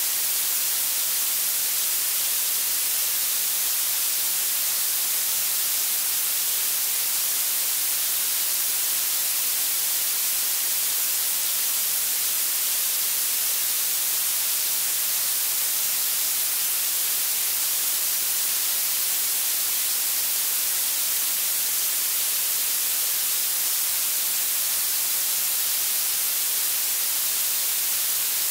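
Blue noise: a steady, unchanging hiss whose energy grows toward the treble, so it sounds bright and sizzly rather than deep.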